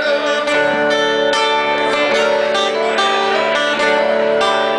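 Guitar playing strummed chords with ringing sustained notes, an instrumental passage with no singing.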